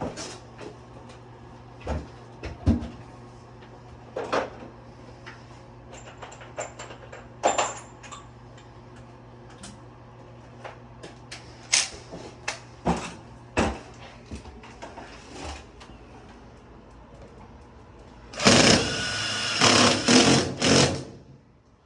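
Sheet-metal duct parts clicking and knocking as they are handled, then a power drill runs loudly in a few short pulses for about three seconds near the end, driving self-tapping screws into the sheet-metal duct.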